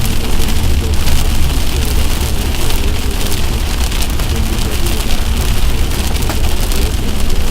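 Heavy rain pelting a vehicle, a dense patter of rapid drop ticks over a steady low rumble.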